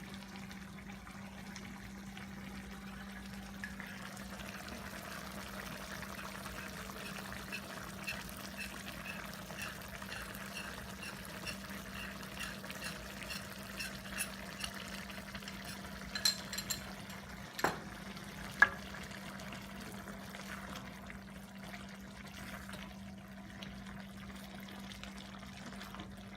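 Liquid cooking in a pan over a steady low hum, with a faint ticking texture through the first half or more. A few sharp clinks of a utensil come about two-thirds through.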